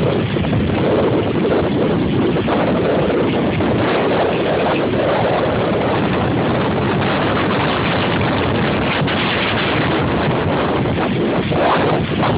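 Strong hurricane wind buffeting the phone's microphone: a loud, steady rushing noise.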